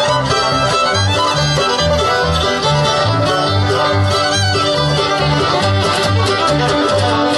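Live bluegrass band playing an instrumental passage: fiddle, five-string banjo and acoustic guitar over a bass line that alternates between two low notes about twice a second.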